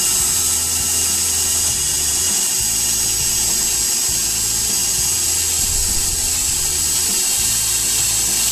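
Foster FSD-010 corded 350 W drill/driver running steadily in forward with a high-pitched motor whine, fitted with a 10 mm drill bit and held on the work.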